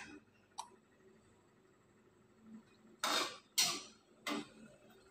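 Spatula scraping and knocking against a wok while boiled eggs and fried tofu are stirred in rendang spice paste: three short scrapes about half a second apart in the second half, after a light click early on.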